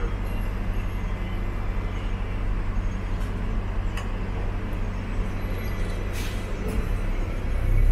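Hong Kong double-decker tram running along the street: a steady low hum and rumble, with a few sharp clicks along the way, growing louder near the end.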